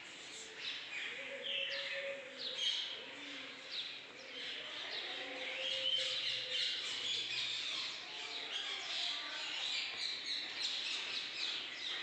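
Many small birds chirping and twittering at once, with quick high chirps overlapping one another throughout.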